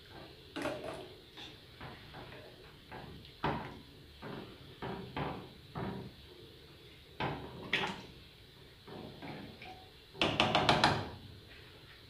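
Wooden spoon knocking and scraping against a small aluminium pot while breaking up and stirring still-frozen cooked beans, in scattered single knocks. About ten seconds in comes a quick run of sharper, louder knocks, the loudest sound.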